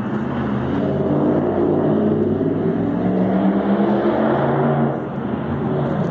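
A motor vehicle's engine passing close by on the street, its steady note swelling and then dropping away about five seconds in.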